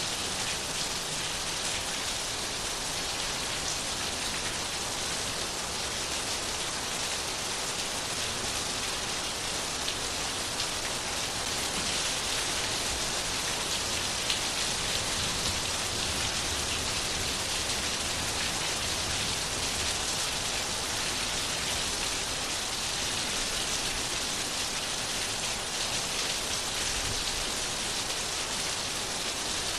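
Steady rain falling on a surface, an even hiss with many small drop ticks and no thunder.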